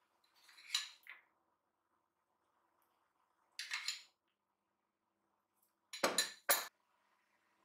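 A utensil clinking and scraping against a bowl in three short bursts as pitted sour cherries are scooped out, the last burst the loudest.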